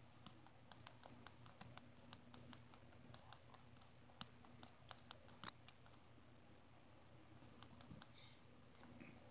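Near silence, broken by faint, irregular small clicks and taps that are densest in the first six seconds and then thin out, over a faint steady hum.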